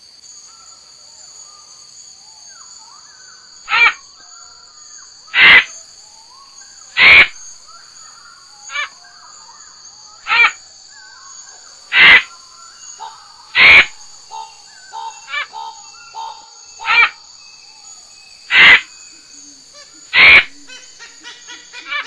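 Male bird of paradise giving loud, short calls in a repeated series, about one every second and a half, with softer calls between them. A steady high insect drone runs underneath.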